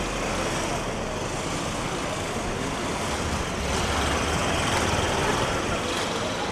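Street traffic noise: motor vehicle engines running steadily, swelling somewhat louder for a couple of seconds around the middle.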